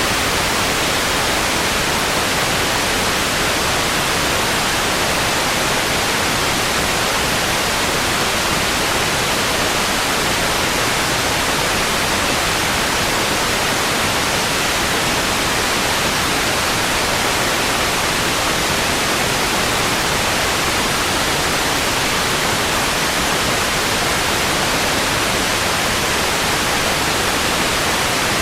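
Old analogue television static: a steady, unchanging hiss of white noise, strongest in the upper range.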